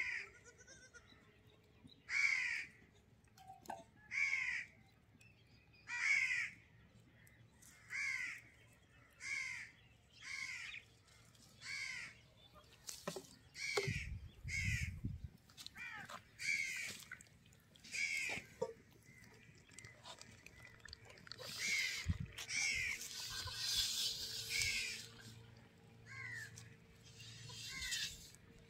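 A crow cawing over and over, short calls roughly every one to two seconds. A low thud comes about halfway through, and a stretch of hiss about three-quarters of the way in.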